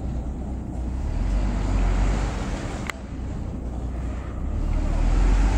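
Road traffic passing: a steady low rumble of vehicles that swells about a second in and builds again toward the end, with one sharp click near the middle.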